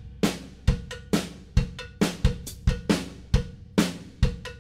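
A drum kit playing a steady beat, with kick drum and snare alternating at about two hits a second and cymbal and hi-hat on top.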